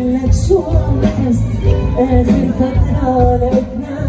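Live Arabic pop music from a band, with a strong beat and a bending melody line.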